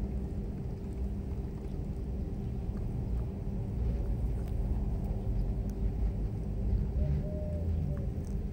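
Steady low rumble under a faint constant hum, with a few faint soft clicks.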